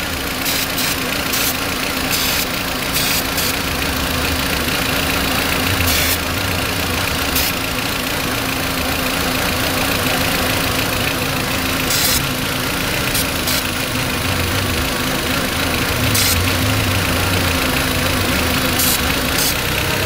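Volkswagen Beetle 1.8-litre turbo four-cylinder engine idling under an open hood, with repeated short hisses of aerosol carburetor cleaner sprayed over the vacuum fittings. This is a vacuum-leak test: the engine has a leak that gives it a rough idle, and the idle speed rising when the spray hits the leak marks the spot.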